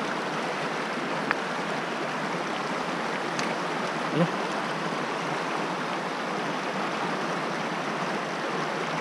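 Small rocky stream running over stones: a steady rush of flowing water.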